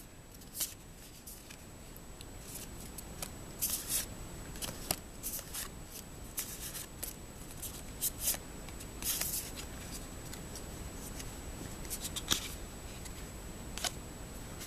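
Trading cards being handled and set down on carpet: irregular short rustles and flicks of card stock, about a dozen scattered over the stretch.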